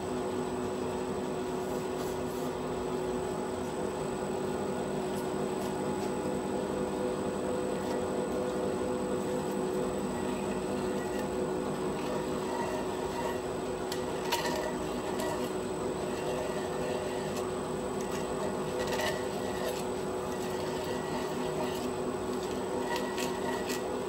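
Steady workshop machine hum with several fixed tones. Over it, a hand and small tool rub and scrape around the bore of a freshly turned aluminium wheel hub, with a few light metallic clicks about two-thirds of the way through and near the end.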